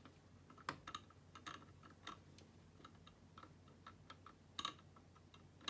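Faint, irregular small clicks and taps, about a dozen, from handling a laptop on the bench.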